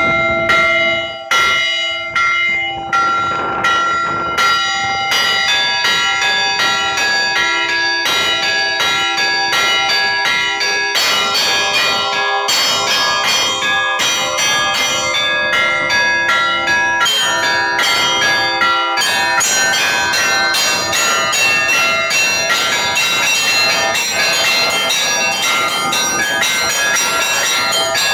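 Orthodox church bells being rung. It opens with a few slow, separate strokes on the bigger bells, then about five seconds in turns into a fast, rhythmic peal of several bells together. The peal grows denser and fuller near two-thirds of the way through.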